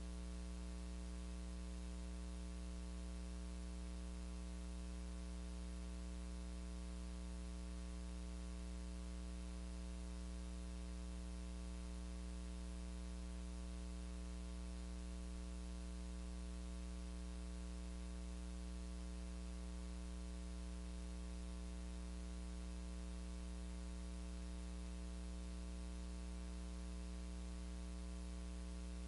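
Steady electrical mains hum with a low buzz and its overtones over constant static hiss, with no change or other sound.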